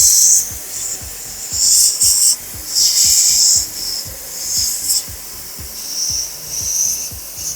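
A car being washed by hand: about six short bursts of hissing, each under a second, repeated at uneven intervals.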